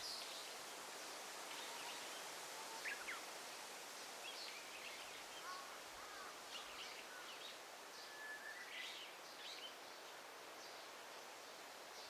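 Daytime forest ambience: several small birds chirping and trilling on and off, with a couple of drawn-out whistled notes in the second half, over a steady background hiss.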